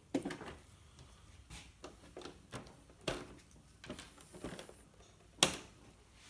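Light clicks and small plastic knocks as the body clips are pulled from the RC crawler's body posts and the hard plastic body shell is handled and lifted off. A sharper click about five and a half seconds in is the loudest.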